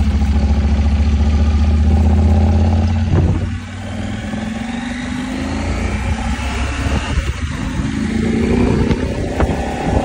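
Motorcycle engine running while riding: a deep steady drone that drops off about three and a half seconds in, then climbs in pitch as the bike speeds up near the end.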